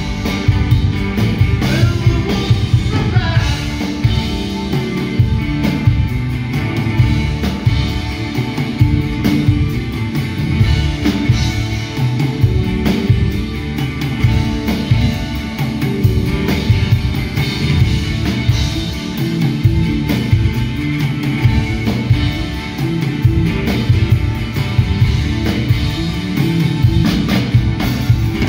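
Live rock band playing: electric and acoustic guitars, electric bass, keyboard and a drum kit keeping a steady beat.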